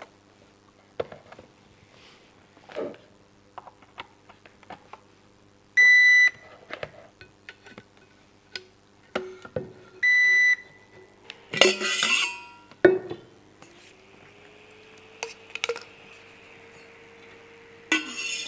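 Small plastic devices and USB cables being handled on a workbench, with two short electronic beeps a few seconds apart as the small thermoelectric insulin cooler is switched on. About halfway through, a small cooling fan spins up, its hum rising briefly and then settling into a steady whir, with more clatter near the end.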